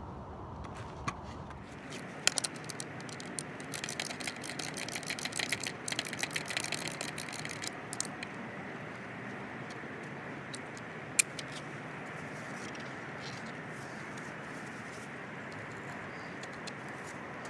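Small metallic clicks and rattles of skateboard truck hardware being handled while a truck is mounted to the deck, busiest between about four and eight seconds in, with one sharp click near the middle. A steady hiss runs underneath.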